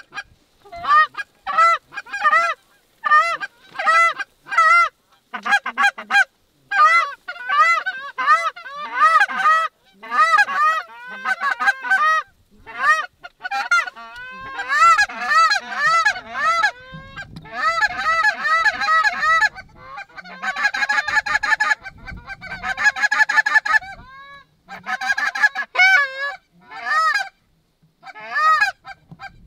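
A flock of Canada geese honking in flight: many short honks rising and falling in pitch, overlapping into a dense chorus in the middle stretch.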